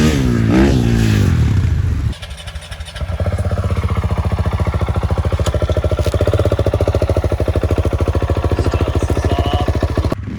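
A motorcycle engine, its pitch rising and falling for about the first two seconds. After an abrupt break it runs at a steady speed with an even, rapid pulse, and cuts off suddenly near the end.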